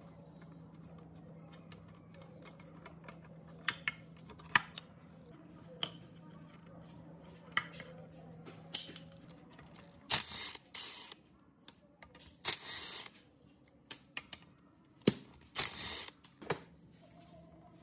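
Metal parts clinking and knocking as a piston and connecting rod are worked out of an air compressor's cast-iron crankcase. In the second half come three short bursts of a cordless impact driver backing out the bearing-cover screws.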